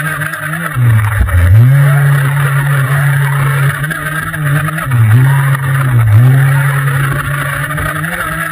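A 1:5-scale RC off-road car's motor running hard, with a steady drone that drops in pitch briefly a few times as the throttle eases and then picks back up.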